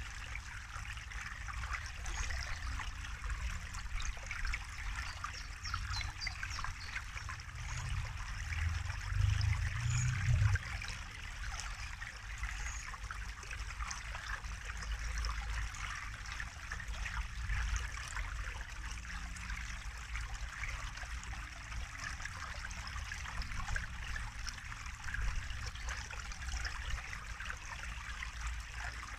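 Small woodland stream trickling and splashing over a low drop, a steady rushing babble of water. A low rumble swells briefly about eight to ten seconds in.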